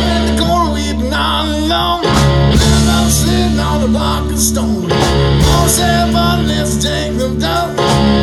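Live amplified band playing, led by electric guitar over a drum kit.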